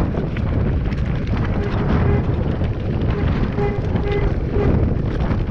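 Mountain bike rattling down a loose stony track: tyres crunching over rocks and the bike and handlebar-mounted camera shaking, with wind buffeting the microphone. Short squeaky notes come and go a few times.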